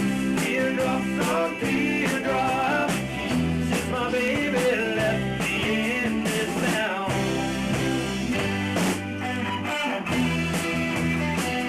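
A rock-and-roll band playing live: a wavering lead melody over bass and a steady drum beat, with no words sung.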